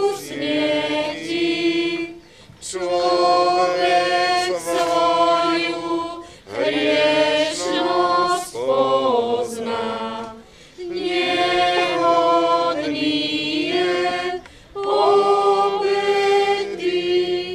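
Congregation singing a hymn unaccompanied, in sung phrases of about four seconds with short breaks between them.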